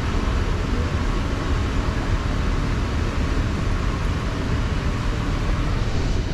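Steady rumble and hiss of a moving ride boat on its water channel, with no distinct events.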